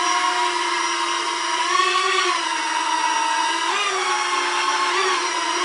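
Small quadcopter with four ducted-fan propellers flying, its electric motors and propellers giving a steady high whine. The pitch rises and dips a few times.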